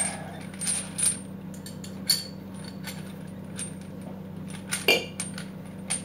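Steel chain links clinking as the chain is handled, in a few separate sharp metal clinks with a bright ring, over a steady low hum.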